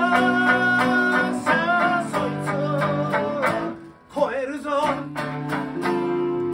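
Male voice singing over two acoustic guitars and a sanshin, played live. There is a brief break in the sound about four seconds in.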